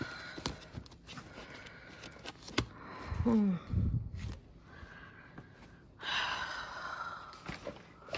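Rummaging through boxes and papers: scattered knocks and clicks, with a short voice-like sound falling steeply in pitch about three seconds in and a breathy sound about six seconds in.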